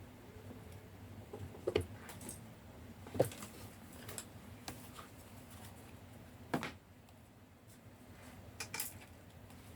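Handling sounds from tarot cards and a guidebook on a table: about five light, scattered knocks and clicks, with the loudest near the middle.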